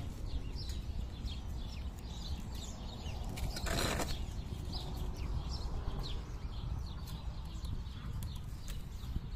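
Black plastic synthetic-rattan weaving cords rustling and swishing as they are handled and pulled through a woven table edge, with one louder swish of cord about four seconds in, over a steady low rumble.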